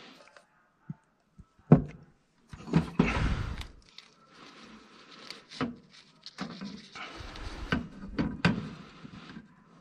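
Handling sounds of pipe work done by hand: rustling and scattered knocks as a threaded gas pipe fitting is doped and turned on, with a sharp knock a little under two seconds in the loudest.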